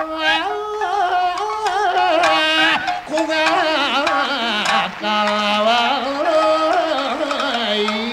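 Rōkyoku (naniwa-bushi) singing: a man's voice holds a long, wavering melismatic line with heavy vibrato, slowly bending in pitch, over plucked shamisen accompaniment.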